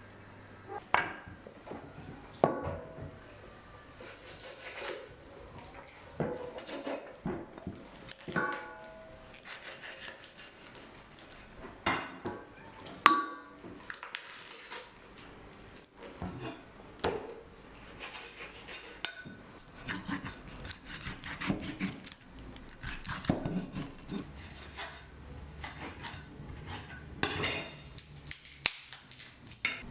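Dishes and kitchen utensils being handled: irregular clinks, taps and knocks, a few with a brief ring.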